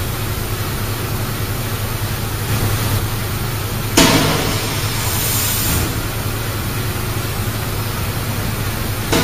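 Steady hum and hiss of workshop machinery in a carbon-fibre rod factory. About four seconds in comes a sudden clunk from the machine, then a short hiss.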